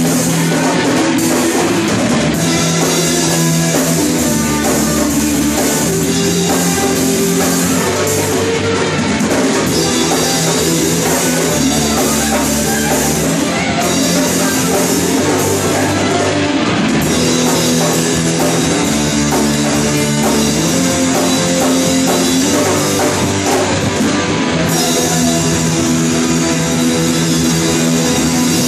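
Rock band playing loud and continuous, with electric guitar and drum kit, shifting between sections of the song a few times.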